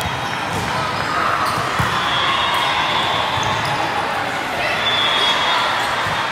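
Volleyballs being hit and bouncing, with a general hubbub of players' and spectators' voices echoing in a large multi-court sports hall.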